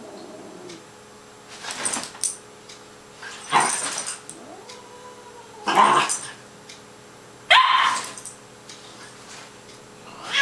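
Cairn terrier puppy barking in four short bursts about two seconds apart.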